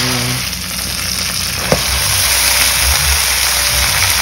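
Food frying in hot oil in a pan: a steady sizzle, with a low rumble underneath and a single click near the middle.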